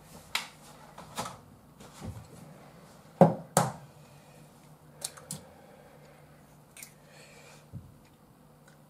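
Clear plastic egg pack being handled as an egg is taken out: a scattered series of light clicks and knocks, the loudest a pair of sharp clicks a little over three seconds in.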